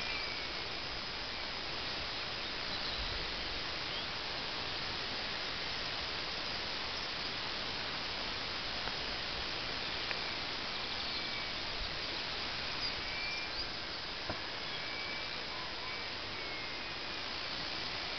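Steady outdoor background hiss with a few faint, short high chirps scattered through it.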